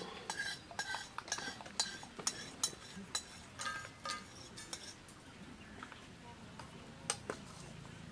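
Metal spatula scraping and clinking against a steel karai as dry-roasted dried red chillies are scraped out onto a steel plate: a quick run of clinks and scrapes for about four seconds, then two more clinks near the end.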